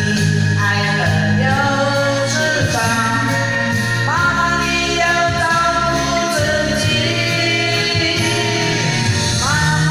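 A woman singing into a handheld microphone over a karaoke-style music backing track, with long held notes and swooping slides up in pitch.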